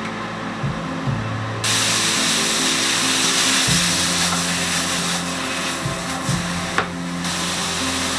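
Chopped meat sizzling in a frying pan: the hiss starts suddenly about one and a half seconds in and drops out briefly near the end, over background music.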